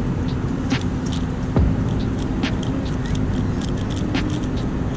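Airliner cabin noise: a steady engine and air drone, with a few short sharp clicks scattered through it.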